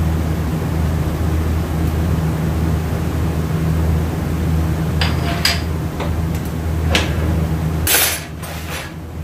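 Metal automatic-transmission parts clinking and knocking against each other and the steel workbench as they are handled. A few sharp clinks come from about five seconds in, then a denser cluster near the end, over a steady low hum.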